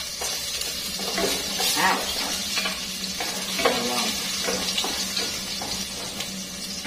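Chopped garlic sizzling in hot oil in a frying pan, with a steady hiss, while a wooden spatula stirs and scrapes it in repeated strokes.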